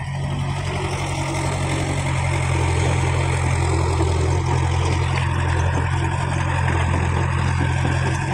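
Caterpillar E70B hydraulic excavator's diesel engine running steadily, a deep constant drone.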